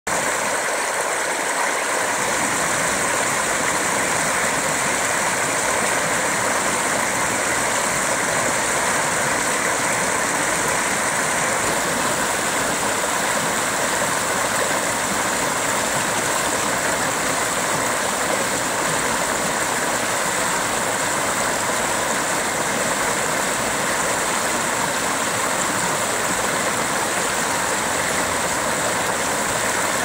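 Water pouring over a small spillway and splashing onto rocks below: a steady, unbroken rush of running water.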